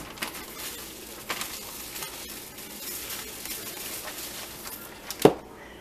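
Plastic zip-top bag crinkling and rustling as hands hold it open and handle it, with one short sharp knock about five seconds in.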